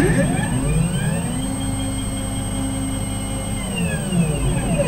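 Stepper motors of a CNC gantry whining as they drive the thread-laying head across the bed. The whine rises in pitch as the carriage speeds up in the first second, holds steady, then falls as it slows near the end.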